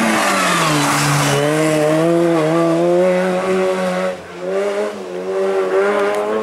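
A race car's engine running hard: its pitch drops in the first second, then holds and climbs steadily. It dips briefly about four seconds in before rising again.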